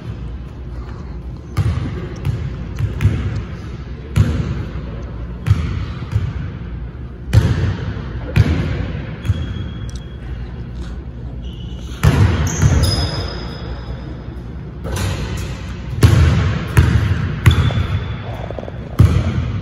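Basketball bouncing on a hardwood gym floor, dribbled in irregular runs of sharp bounces that ring in the large hall, with a few short high squeaks between them.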